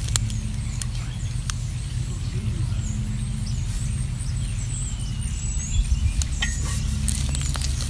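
Small birds chirping in short, scattered calls over a steady low rumble, with a few sharp clicks.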